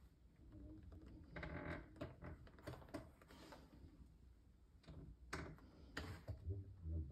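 Faint, scattered small clicks and knocks with some low rumble, several close together in the second half.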